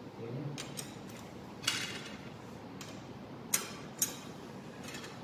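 A few sharp metal clicks and clinks, spread out and the loudest about a second and a half in, from a T-handle wrench with a 13 mm socket and extension being set onto and turning the bolts of an engine block stiffener plate.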